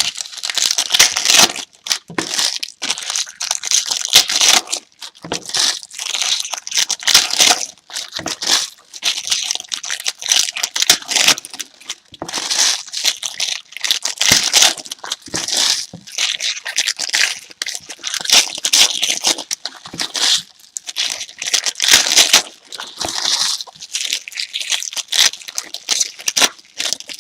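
Plastic wrapping on a trading card box and packs being crinkled and torn open by hand, in long irregular stretches of crackling.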